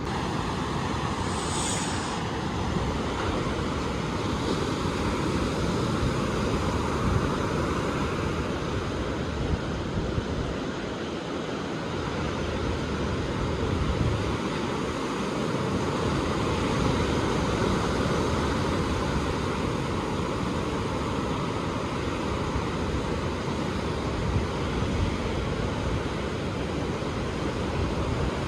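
Ocean surf: waves breaking and washing in as a steady rush that swells and eases every few seconds.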